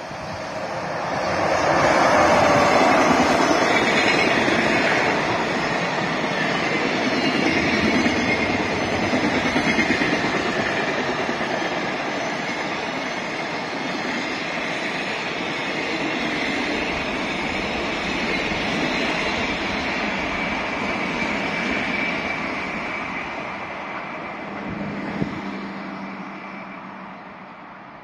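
An electric-hauled freight train of JR container wagons running past. The locomotive goes by loudest about two seconds in, followed by a long steady run of wagons that fades near the end.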